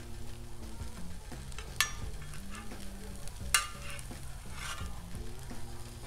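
Metal spatulas scraping across a steel flat-top griddle and clinking as food is scooped into a stainless taco rack, with two sharp metal clicks about two and three and a half seconds in, over a faint sizzle of food still on the hot griddle.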